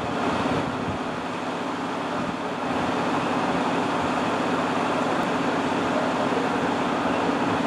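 Diesel engine of a parked fire engine idling: a steady, unbroken drone with a constant hum through it.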